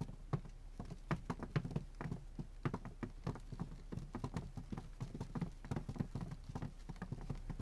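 Footsteps of several people walking away together: many short, overlapping steps, several a second, fading a little toward the end.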